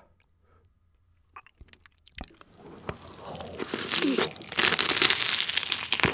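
Biting into and chewing a sauce-soaked, crumb-coated Korean corn dog close to the microphone. The first two seconds are nearly quiet with a few small clicks, then the crunching starts and grows loud from about four seconds in.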